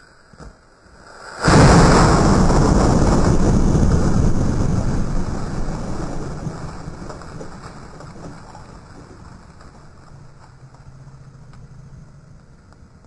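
A homemade black powder cannon going off about a second and a half in. The blast is followed by a long rumble that fades away over several seconds.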